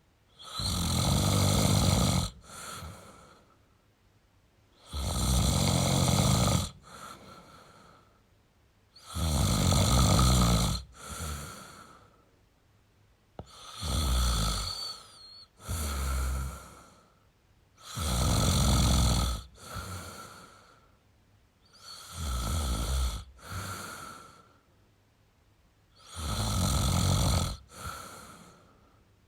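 A man snoring in a slow, even rhythm: a loud snore about every four seconds, most of them followed by a shorter, softer breath, with quiet gaps between.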